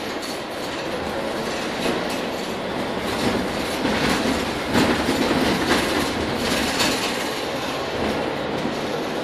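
Cabin noise inside a moving Mercedes-Benz Citaro K city bus: steady engine and road noise, with occasional knocks and rattles from the body and fittings.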